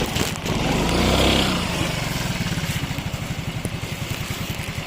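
An engine running with a steady low throb, louder for a moment about a second in.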